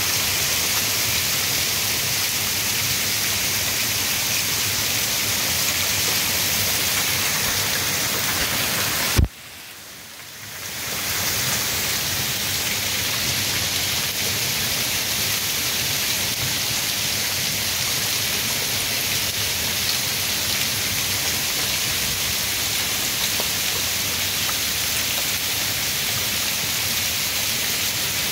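Heavy wind-driven rain in a severe thunderstorm, pouring onto and off a house's roof edge and gutter as a steady, dense hiss. About nine seconds in there is a sharp click, after which the sound drops out and fades back in over a second or two.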